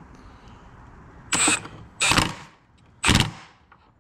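Cordless impact wrench run in three short bursts, tightening the nut that secures the cooling fan onto the alternator shaft.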